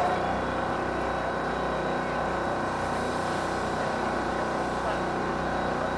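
Steady mechanical drone of an engine running, even in level with no change in pitch.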